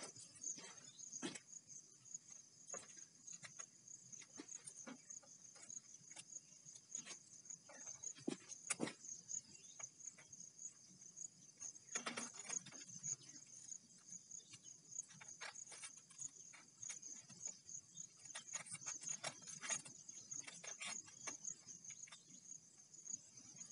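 Crickets or similar insects chirring in a steady high band. Over it come scattered soft clicks and rustles as plastic-bottle rope is handled and tied to a bamboo trellis pole.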